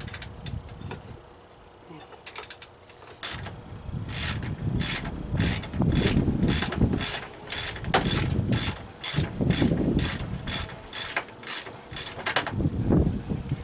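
Ratchet wrench clicking in steady strokes, about two clicks a second, as a bolt on the ATV's swing arm is loosened. The clicking starts about three seconds in and stops near the end.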